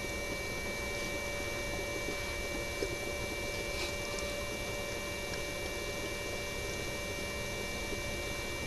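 Steady electrical hum with faint high steady tones above it, and a faint tick or two.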